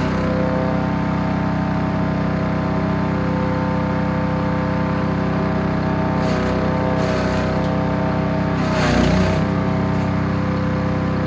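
Small petrol engine of a 3-inch wood chipper running steadily. Brief crackling bursts come a little past halfway and again about nine seconds in. At the loudest burst the engine's pitch dips for a moment, as it would when a branch loads the engine.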